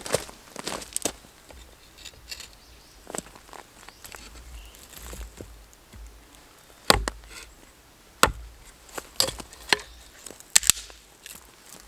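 A series of irregular sharp knocks and clicks: about ten short impacts, scattered unevenly, the loudest a little past the middle and a quick run of them near the end.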